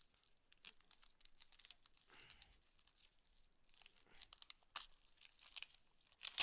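Cardboard shipping box being ripped open by hand: short irregular tearing and crinkling rasps of cardboard, with one sharp, louder rip at the very end.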